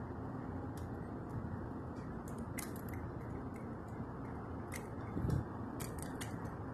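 Scattered light clicks and taps from a hand handling a First Gear model garbage truck and its plastic toy wheelie carts, with a soft low thump a little after five seconds in, over a steady background hiss.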